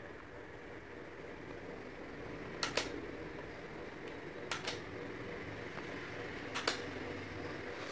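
Small battery-powered table fan running with a steady hum, its push-button switch clicked three times, about two seconds apart, each press a quick double click.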